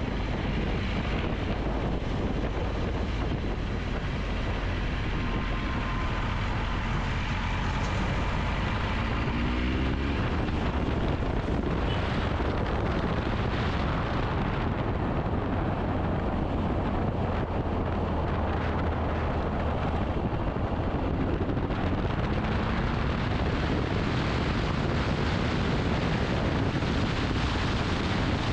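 Motorcycle riding at speed: steady wind rush over the microphone with the engine running underneath, its note rising briefly twice.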